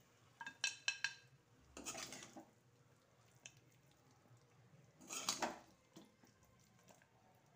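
A metal spatula clinking and scraping in a metal kadhai as cooked sabudana khichdi is scooped out onto a plate. A quick run of ringing metallic clinks comes about half a second in, then two scraping strokes about two and five seconds in, with a few light ticks between.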